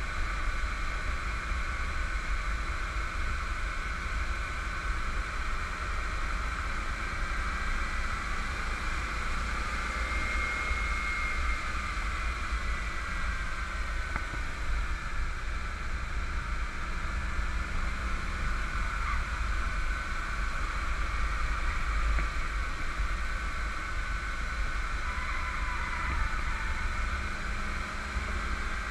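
Steady wind rush and low wind rumble on the microphone of a car at track speed, with a 1991 Camaro Z28 1LE's 305 TPI V8 and its tyres running underneath.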